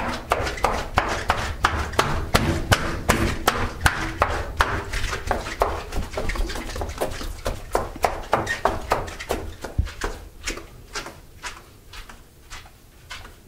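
Quick, even pulse of a person hurrying along on foot, about three beats a second, fading toward the end.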